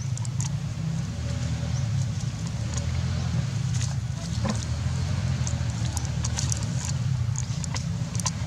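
A steady low motor-like rumble runs throughout, with light scattered clicks and rustles over it.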